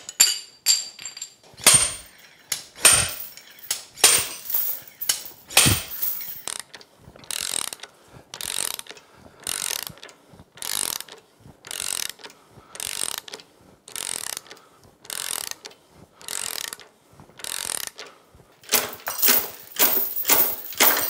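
Slide hammer yanking on a chain hooked around the seized bearing carrier of a MerCruiser Bravo 2 lower unit: repeated metallic clanks with chain rattle, about one a second. Near the end comes a quicker clatter as the carrier works loose.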